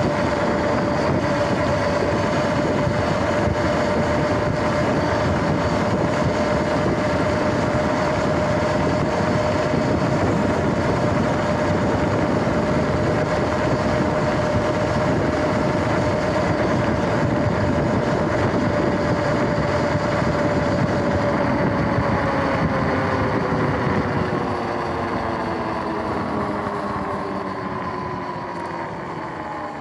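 Sur-Ron X electric dirt bike's motor whining at a steady pitch at cruising speed, over wind and tyre noise. About 21 seconds in the whine starts falling in pitch and the sound fades as the bike slows down.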